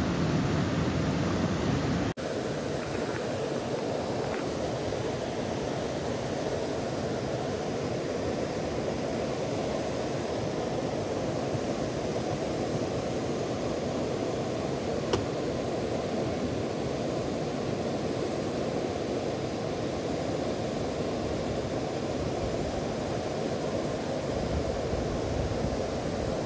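Steady rush of a fast-flowing river, an even wash of water noise that barely changes. It breaks off abruptly about two seconds in and resumes at once, and a single faint click comes about halfway through.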